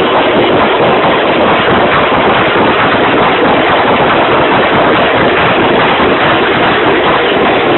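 Loud, steady din of a street procession crowd, dense with small percussive hits, overloading the phone's microphone.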